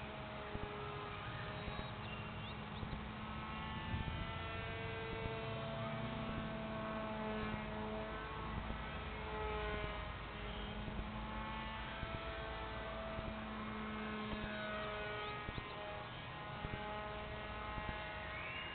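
Slow background music of long held notes over a steady low hum.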